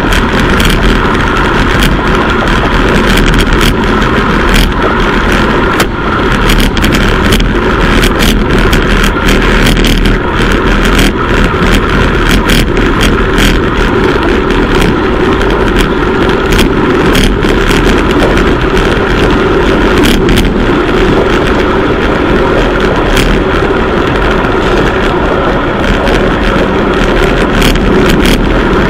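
Wind rushing over a bike-mounted camera's microphone at about 45 km/h, with road and tyre noise underneath, loud and steady throughout. Frequent sharp clicks and knocks punctuate it as the bike rides over the road surface.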